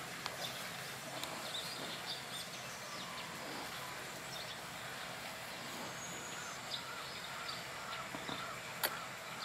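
Steady outdoor background noise with faint, scattered bird chirps and a few small sharp ticks.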